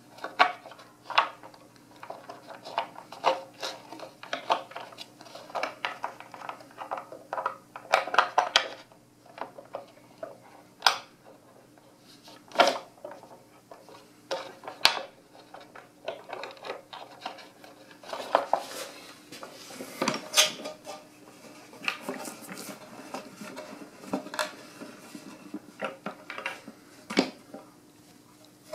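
Metal bolts and hardware clicking and clinking as they are handled and started by hand through the plywood shell into the chair's uprights, with irregular knocks as the shells are moved about.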